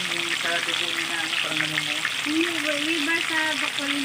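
Tilapia pieces deep-frying in hot oil, the oil sizzling and crackling steadily.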